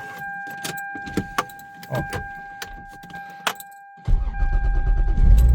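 Inside a Toyota SC300, a steady electronic warning tone sounds over keys jingling and small clicks. About four seconds in, the 2JZ-GE straight-six starts and runs with a loud, deep rumble through its newly refitted headers.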